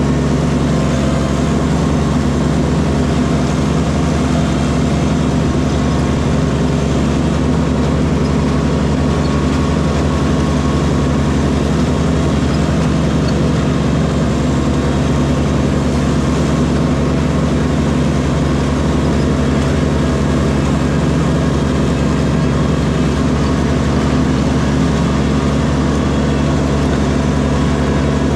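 Kubota diesel tractor engine running steadily at a constant speed.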